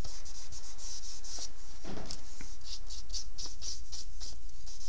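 Charcoal stroked quickly back and forth across drawing paper, a dry scratchy rubbing of about five short strokes a second, laying down a darker shadow tone.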